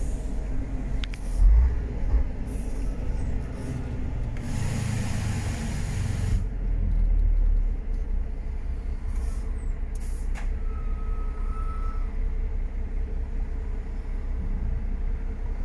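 MAN F90 26.422 truck's diesel engine running steadily on the move, with several short hisses of air, the longest about five seconds in. A brief steady tone sounds about ten seconds in.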